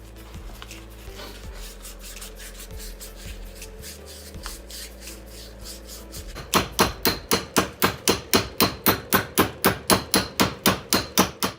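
Rapid, even hammer blows on metal, about four a second, starting about six and a half seconds in after a low, steady background.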